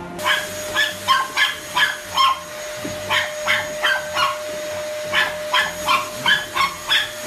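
A puppy yapping at a running Dyson upright vacuum cleaner: quick high barks about three a second, with a short pause midway, over the vacuum's steady motor whine.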